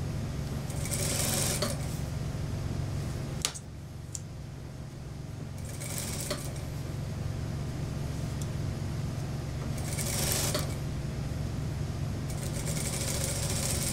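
Industrial sewing machine running steadily, stitching a seam in a mink coat with a strip of tape fed in alongside. There are a few short rustles of the fur and fabric being handled, and one sharp click about three and a half seconds in.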